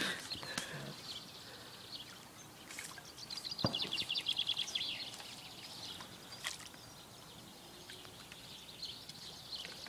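A small bird sings a fast trill of high repeated notes for about two seconds, starting about three seconds in. Faint water sloshing from a landing net being moved through the pond lies underneath.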